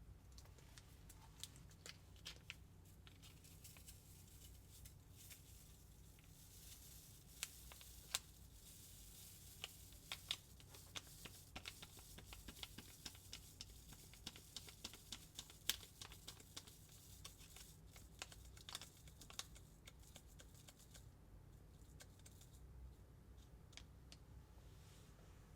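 Faint hands-on handling of a DIY sweets kit: scattered small clicks and taps with light rustling. These come thickest in the middle of the stretch and thin out near the end.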